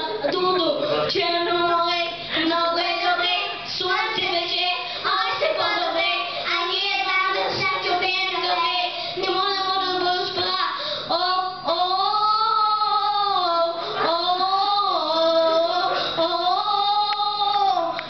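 Young children singing a song, a boy into a handheld microphone, the melody unbroken and moving into longer held notes about two-thirds of the way through.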